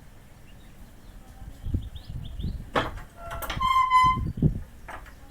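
Faint, short, high chirps from nestling birds, mixed with low bumps and rumbles and a few sharp clicks. About four seconds in there is a brief squeaky call that holds one pitch.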